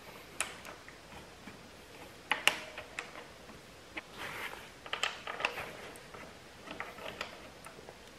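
Scattered light metallic clicks and taps from a motorcycle's front brake caliper being handled and seated over the disc while its bolt holes are lined up, the sharpest click about two and a half seconds in.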